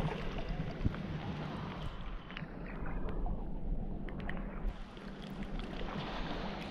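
Small waves lapping and splashing against a camera held at the water's surface, with scattered small clicks and splashes over a steady low rumble.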